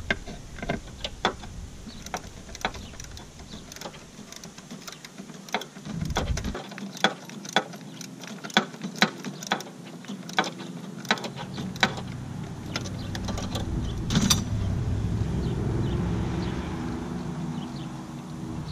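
Craftsman socket-wrench ratchet clicking in irregular runs as a brake master cylinder mounting bolt is worked loose, with one louder clack about fourteen seconds in. A low vehicle hum builds in the second half.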